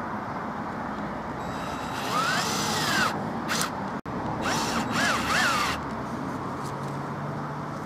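Cordless drill running in short bursts into a wooden board, its motor whine rising and falling as the trigger is squeezed and let go. There are two main runs, about two and four and a half seconds in, with a short blip between them.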